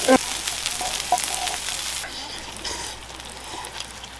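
A pot of budae-jjigae boiling on a portable gas stove, hissing and bubbling steadily. The hiss drops off sharply about halfway through, and a few light clinks of a ladle against steel pots and bowls follow.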